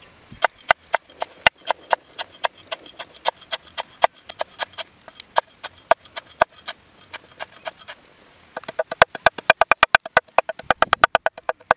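A kitchen knife chopping vegetables finely, in quick regular strokes at about five a second. About eight and a half seconds in, the strokes speed up to about ten a second and take on a ringing tone.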